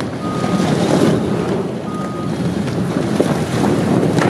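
Steady rumbling, rushing noise of a building collapsing and its debris coming down after a wrecking ball strike, heavy with wind noise on the microphone.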